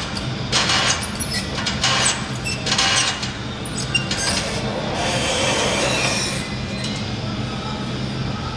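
A steady engine-like hum runs under a string of loud rustling, clattering noises in the first three seconds, then a swelling whoosh about five seconds in that fades by seven.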